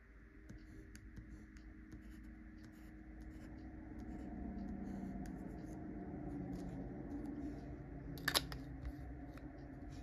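Light scratching and ticking of a fountain pen's steel stub nib making short strokes on paper, then small plastic clicks as the clear pen and its cap are handled, the loudest a sharp click about eight seconds in.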